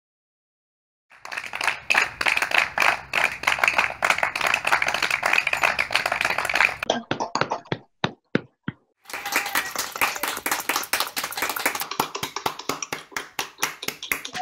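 A group of people clapping their hands, a dense patter of many claps starting about a second in. Near the middle it thins to a few single claps and stops briefly, then a second round of clapping starts.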